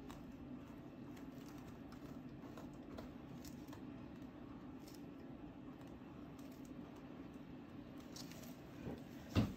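Faint clicks and taps of brushes and paint tools being handled on a work table, over a steady low hum, with one louder knock near the end.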